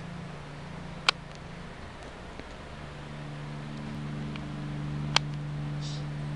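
A steady low hum that becomes fuller about halfway through, with two sharp clicks, one about a second in and one near the end.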